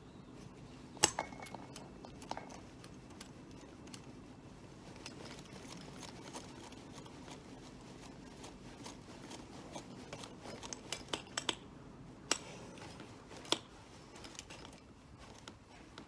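Intermittent sharp clicks and light metallic clinks from hand tools and small fittings being handled, with a steady low hum underneath. A loud click with a brief ring comes about a second in, then a quick run of clicks around eleven seconds and two single clicks a second apart after that.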